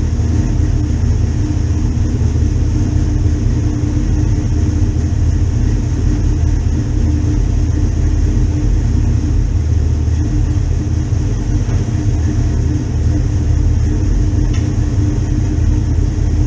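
A motor or engine running steadily, a continuous low rumble with a steady hum above it.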